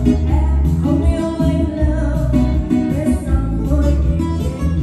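Live Vietnamese pop song played loud through a PA: a woman sings into a microphone over a one-man-band keyboard backing with a steady bass line, beat and guitar-like tones.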